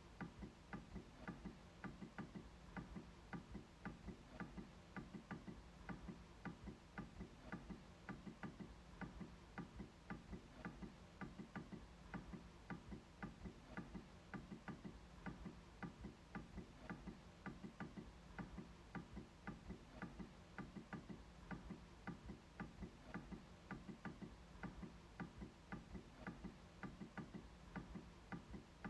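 MacBook trackpad being clicked over and over, quiet short clicks at about two to three a second.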